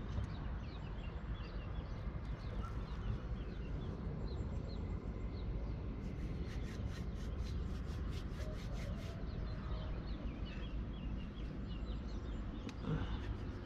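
Small birds chirping in the background over a steady low rumble, with a run of quick sharp clicks between about six and nine seconds in.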